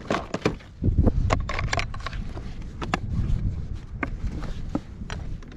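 Scattered clicks and knocks of gear being handled in the plastic cockpit of a fishing kayak, over a low rumble of wind on the microphone.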